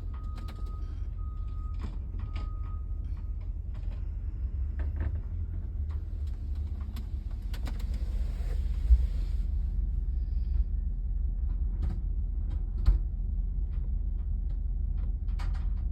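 A vehicle engine running with a steady low rumble. There is a repeating beep during the first few seconds, and scattered knocks and clunks, the two loudest about nine and thirteen seconds in.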